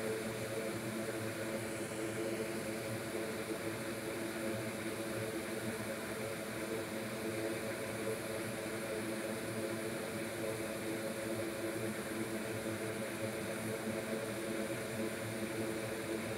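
Steady whir of workbench air equipment: a hot air rework station blowing on a chip while it is desoldered, with a fume extractor running.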